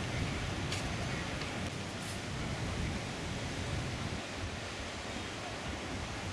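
Wind buffeting the camera's microphone: a steady rushing noise with an uneven, gusty low rumble.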